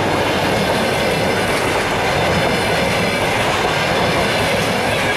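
Passenger coaches passing close by at speed: a loud, steady noise of steel wheels running on the rails.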